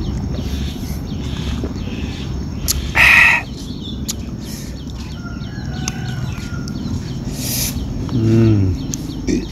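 Chickens in the background, with one short loud squawk about three seconds in, over a steady low outdoor hum and faint small-bird chirps. Near the end come a brief crackle and a short low hum.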